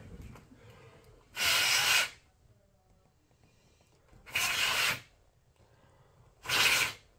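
Three short blasts of air, each about half a second, hissing through a laptop's cooling fan to blow the dust out of it; the first comes about a second and a half in, the others near the middle and near the end.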